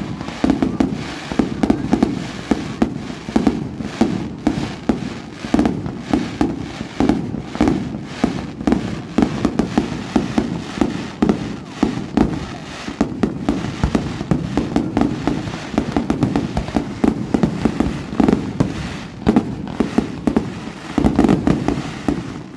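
Fireworks display: a continuous barrage of bangs and cracks, several a second, with no let-up.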